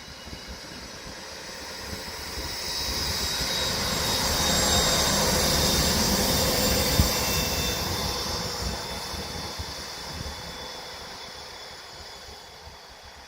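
Furka Oberalp Deh 4/4 II electric power car and its train passing, with steady motor and wheel noise that grows to a peak about halfway through and then fades as the train moves away. A single sharp clack comes about seven seconds in.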